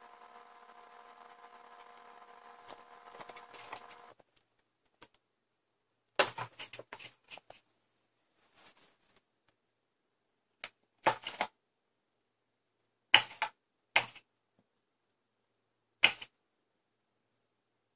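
A faint steady hum with a few light clicks. Then, after a short gap, short sharp scratches and knocks on cardboard come in scattered bursts a second or two apart as cats paw and scrabble at a cardboard play box.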